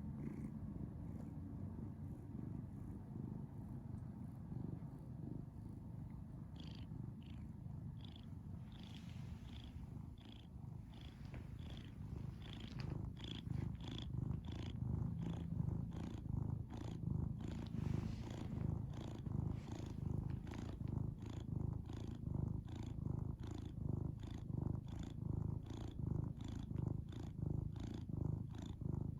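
Domestic cat purring, a steady low rumble, with a faint higher breathy sound on each breath that begins about six seconds in and repeats roughly every two-thirds of a second.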